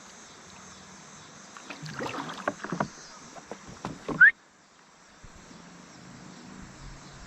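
Kayak on the river: paddle and water noises, with a cluster of knocks against the boat about two to three seconds in and a short, loud squeak just after four seconds, after which it turns quieter.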